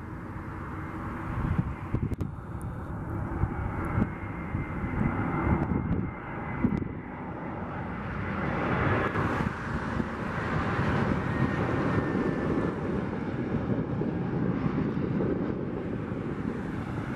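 Airbus A321 jet airliner on landing approach passing low, its engines' rumble swelling as it nears, with a thin whine that slides slightly lower in pitch. Gusts of wind buffet the microphone now and then.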